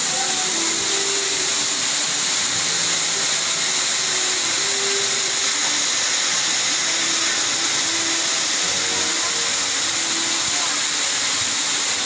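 Water of an artificial curtain waterfall pouring down close in front, a steady rushing hiss that does not let up.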